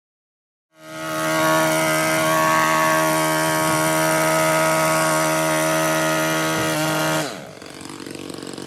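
A motor-driven power tool running at a steady speed for about six seconds, then winding down with a falling pitch just after seven seconds in, leaving a quieter tail.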